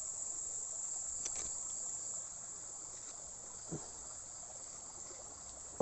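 Steady high-pitched chorus of night insects, crickets, with a few faint ticks and a brief soft low knock partway through.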